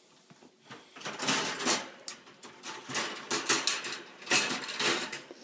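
English bulldog waking up in a wire crate, making several loud noisy snorts and snuffling breaths in clumps, starting about a second in.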